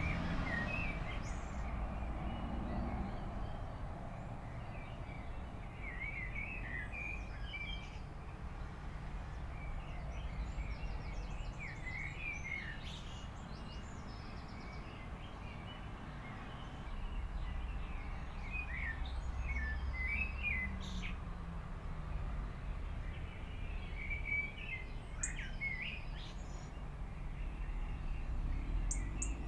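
Small birds chirping in scattered bursts over a steady low outdoor rumble.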